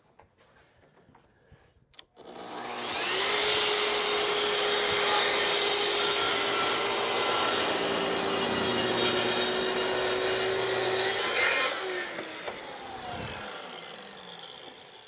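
Track saw making a crosscut through a shelf panel: the motor winds up with a rising whine about two seconds in, runs steadily under load through the cut, then is released near twelve seconds and the blade's whine falls as it coasts down.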